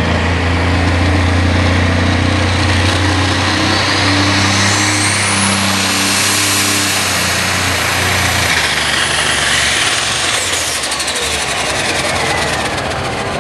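A John Deere pulling tractor's turbocharged diesel engine runs flat out under load, pulling a weight-transfer sled. Its turbo whine climbs to a very high, steady pitch. About nine seconds in the engine is throttled off, and the turbo whine winds down over the next few seconds.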